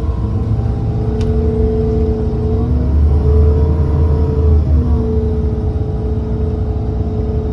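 A large engine running steadily: a low rumble under a constant hum that shifts slightly in pitch twice.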